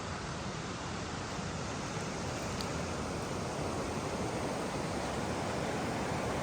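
Steady rushing of running water, slowly getting a little louder.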